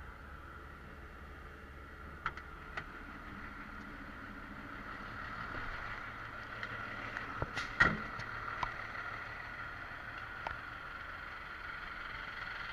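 Emergency vehicles at a street scene: a steady high-pitched tone that grows louder over vehicle noise, with a few sharp knocks, the loudest about eight seconds in.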